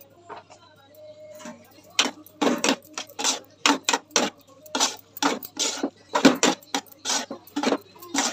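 Metal spatula scraping and stirring cauliflower curry in a metal pot, in quick repeated strokes about two or three a second that start about two seconds in.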